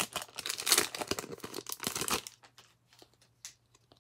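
Plastic wrapper of a baseball card pack crinkling and tearing open, loud for about two seconds, then only faint rustles and ticks as the cards are handled.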